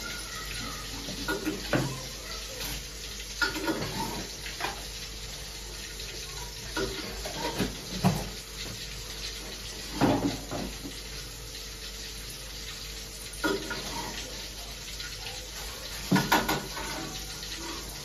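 Steel pots and a ladle clatter every few seconds over a steady hiss, as food is stirred in a pan on a gas stove.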